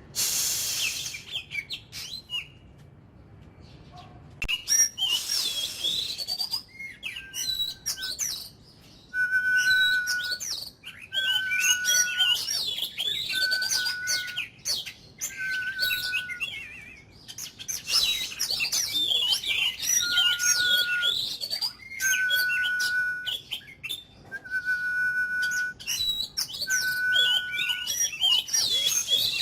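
Oriental magpie-robin singing: fast, varied phrases of chirps and twitters in runs broken by short pauses, with a steady whistled note held under a second and repeated about every two seconds from about a quarter of the way in.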